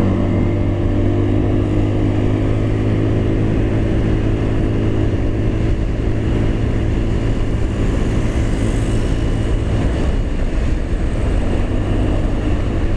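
Motorstar Easyride 150N scooter's 150cc single-cylinder engine running at a steady high drone as it climbs a hill at about 73 km/h, with wind noise over the microphone. The engine holds its pitch on the climb without labouring.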